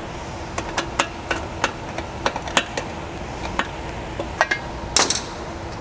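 Irregular light metallic clicks and clinks of screwdrivers working the hose-clamp screws on a sheet-metal hose reel drum as the clamps are tightened, with a louder scrape near the end.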